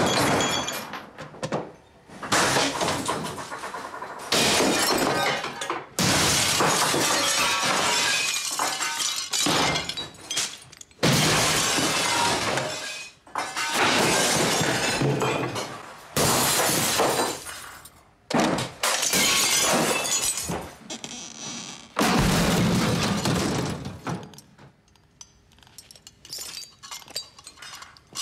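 A series of about ten loud crashes of glass shattering and furniture being knocked over as a room is smashed up, each a few seconds apart, trailing off into smaller clatters near the end.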